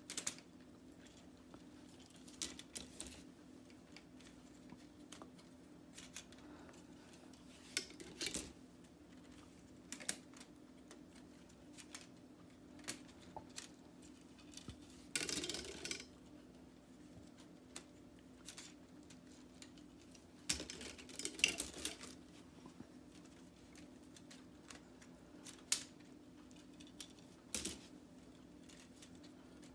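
K'nex plastic rods and connectors clicking and clattering as the Ferris wheel's spokes are unsnapped and stacked by hand. It comes as scattered single clicks with a few short bursts of rattling.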